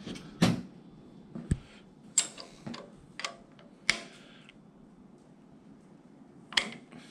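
Scattered sharp metal clicks, about seven in all, of a hex key and wrench working a roller rocker arm's adjuster nut on a small-block Chevy 350 while valve lash is reset. The lash on this valve was a little tight and is being backed off.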